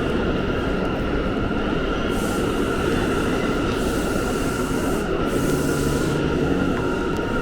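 New York City subway train running: a steady rumble with a continuous high-pitched whine, and hiss that swells several times.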